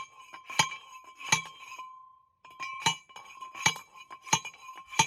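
A steel T-post being driven with a post driver: about seven ringing metal clangs, roughly one every three-quarters of a second, with a short pause about two seconds in.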